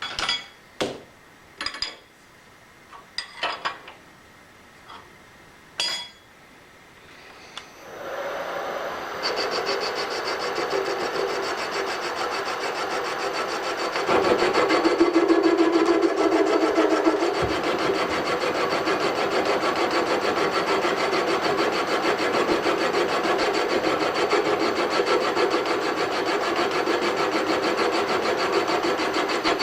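A few sharp clicks and clanks, then about eight seconds in a metalworking machine tool starts and runs steadily, cutting metal, louder for a few seconds around the middle.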